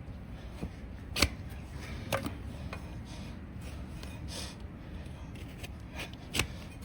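Sharp knocks and clicks from trimming a donkey's overgrown hoof, a few separate strikes about a second in, two seconds in and near the end, with fainter ticks between them.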